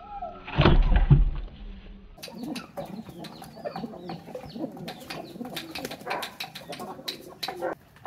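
Two heavy thumps about half a second and a second in, then a busy mix of bird calls: domestic pigeons cooing and chickens clucking, with many short calls overlapping until just before the end.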